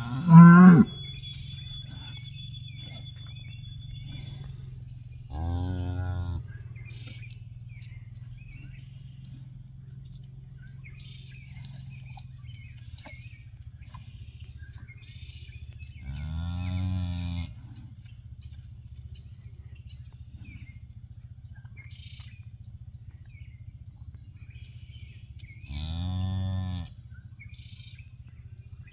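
A cow mooing beside her newborn calf: one short, loud call at the start, then three low, soft moos roughly ten seconds apart, each about a second long. Small birds chirp faintly in the background.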